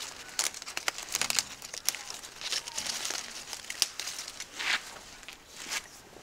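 Leaves rustling and crinkling, with irregular sharp ticks and snaps, as leaves are plucked by hand from a leafy shrub.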